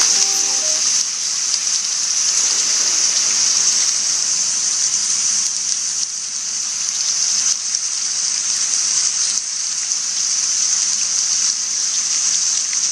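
Steady rain: an even, fairly high hiss of falling rain that holds at much the same level throughout.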